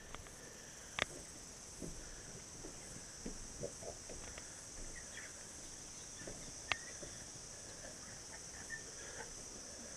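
Steady high-pitched insect chorus, with scattered small clicks and knocks and a few short chirps.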